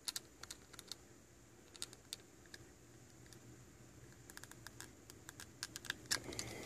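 Light, irregular clicks and taps of scissor blades working the hinge pin out of a NabStand tablet stand's hinge. The clicks come faster in the last two seconds, and the loudest comes at the very end.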